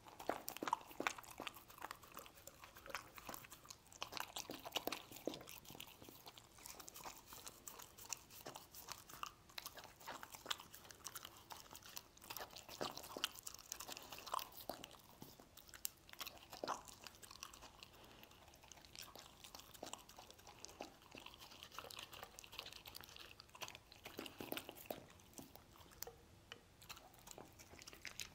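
A dog chewing and crunching mouthfuls of stir-fried meat, with irregular, close smacks and crunches as it bites and works the pieces.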